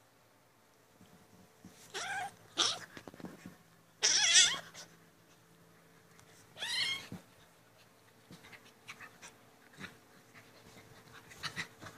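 Kittens crying out while play-fighting: a few short meowing cries about two, four and seven seconds in, the loudest near four seconds with a wavering pitch, and a weaker one near the end.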